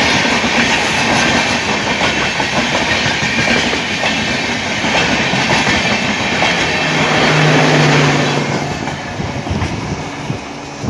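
LHB passenger coaches running past close by at speed, with a dense rolling rumble and rapid clickety-clack of wheels over the rail joints. A low steady hum rises briefly about seven seconds in. The sound then fades as the tail of the train passes and draws away.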